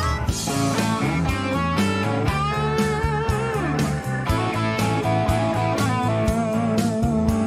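Background rock music: guitar with bent, wavering notes over a steady beat.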